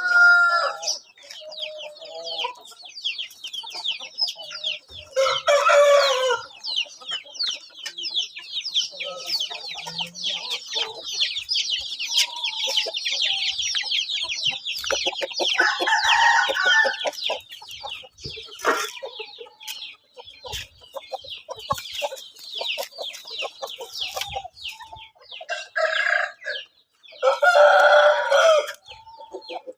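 Aseel chickens calling: loud rooster crows and clucks break in a few times, over a continuous, rapid high-pitched chirping.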